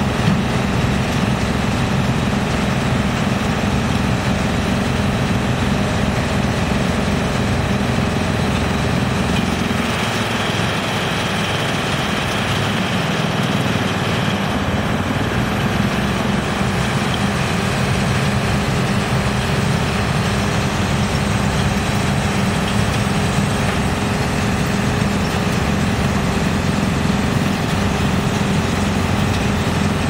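GX2113 wood chipper, driven by a large electric motor, running and chipping wood, with a working excavator's engine alongside: a steady, loud mechanical din. The low rumble eases for a few seconds midway, then comes back.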